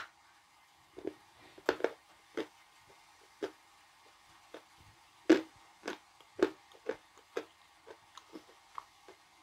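Biting into and chewing a piece of blue Uzbek edible clay: irregular crisp crunches, roughly one or two a second, the loudest about five seconds in, then growing fainter toward the end as the clay breaks down.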